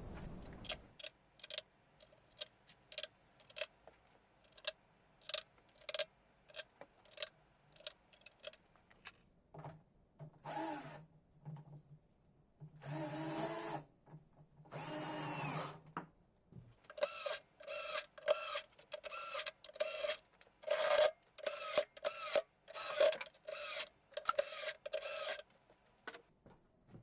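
Power drill-driver running in three runs of about a second each and then many short bursts, after a series of light clicks.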